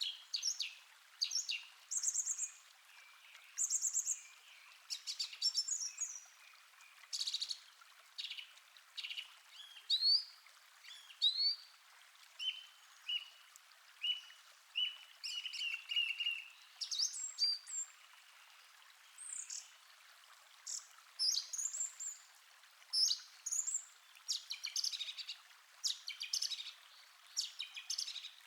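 Several songbirds calling and singing in short chirps, trills and rising whistles, one after another, over a faint steady rush of a calm stream.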